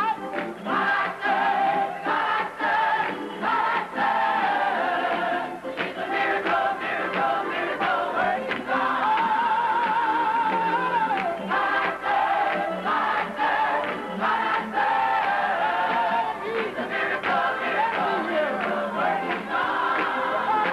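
Gospel choir singing in full voice, with steady hand-clapping from the choir and congregation.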